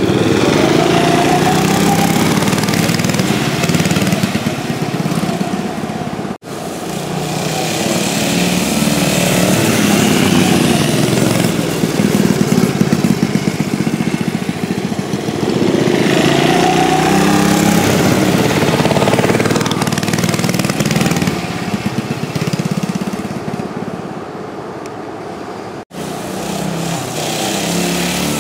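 Small mini bike engines running and being ridden, the pitch rising and falling with the throttle. The sound breaks off abruptly twice.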